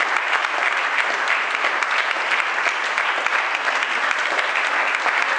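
Audience applauding: many hands clapping in a dense, continuous patter that keeps an even level throughout.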